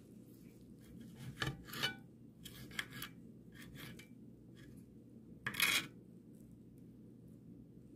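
Knife slicing a cooked steak in a cast iron skillet, the blade scraping and clicking against the iron: a run of short scrapes in the first four seconds, then one louder, longer scrape a little past halfway.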